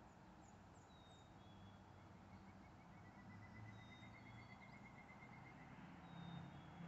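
Faint dawn birdsong: a rapid, even trill of about eight notes a second from about two seconds in to nearly six, with short high whistled notes and chirps scattered through. Underneath, a low hum of distant road traffic swells near the end.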